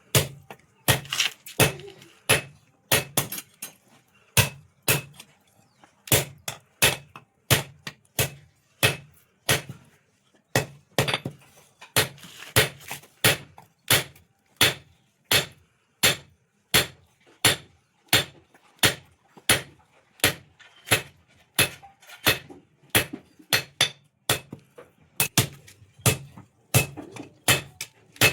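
Blacksmith's hammer striking steel on an anvil in a steady rhythm, about two sharp, briefly ringing blows a second, some coming in quick pairs, as a sickle blade is forged.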